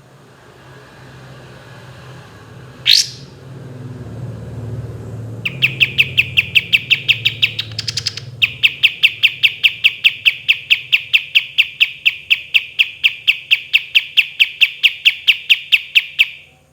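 Kapas tembak songbird: one quick upswept whistle about three seconds in, then a long, very regular rapid series of sharp notes, about seven a second, that runs on with a brief break and stops shortly before the end. This rapid series is the repeated 'tembakan' ('shots') for which the bird is kept.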